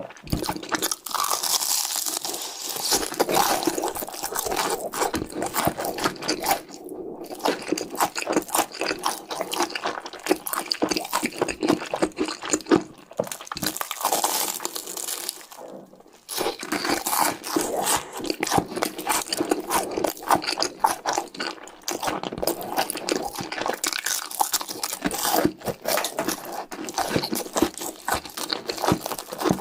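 Close-up crunching and chewing of cheese sticks: dense, crackly bites and chews with short pauses about 7 and 16 seconds in.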